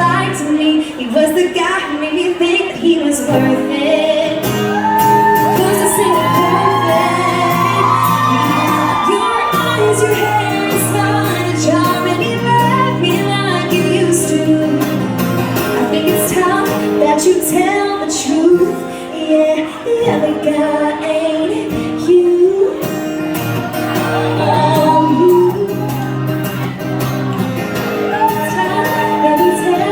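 Live band music played loudly in a concert hall, with a woman's voice singing or vocalising over it.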